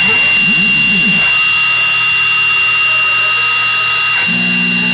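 Mini CNC router's spindle whining steadily at a high pitch while a small end mill cuts carbon steel sheet. Underneath, the machine's axis motors hum, rising and falling in pitch over the first second, then holding steady tones. A louder low hum starts about four seconds in.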